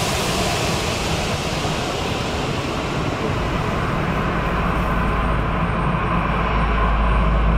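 Boeing 737 jet engines at taxi power: a steady jet rumble, with a whine that grows louder in the second half as the aircraft comes closer.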